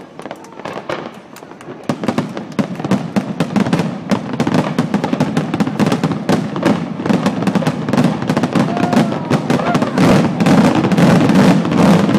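Fireworks display: a dense, rapid crackle of many small pops over a low steady rumble. It thickens about two seconds in and grows louder toward the end.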